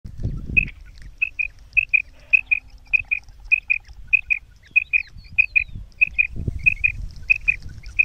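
Female common quail (batair) calling: high two-note calls repeated steadily, about three pairs every two seconds, as used to lure quail. Low thumps near the start and about six and a half seconds in.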